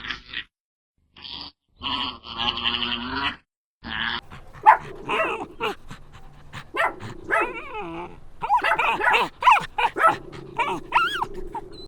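A dog barking, yipping and whining in short cries that slide up and down in pitch, from about four seconds in; before that come a few short, chopped-off bursts of a buzzy animal call.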